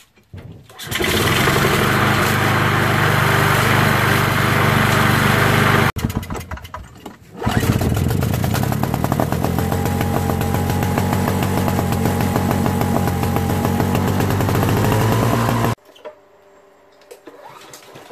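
Small engines running loudly and steadily in two stretches, each cutting off abruptly. The second, from about seven seconds in until near the end, is a single-stage snowblower's engine running after a rough, uneven moment as it catches.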